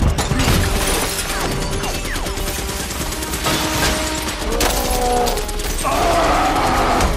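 Film battle sound mix: a fighter jet's cannon fire striking metal, with shattering and crashing debris in a dense, continuous racket. A few held tones sound near the middle and toward the end.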